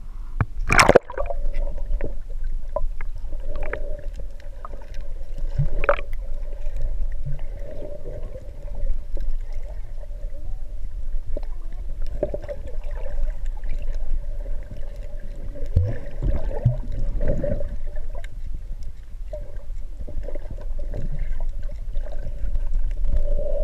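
Muffled underwater sound through a GoPro's waterproof housing: water moving around the case, a low rumble and a steady hum, with a sharp noise about a second in as the camera is dunked.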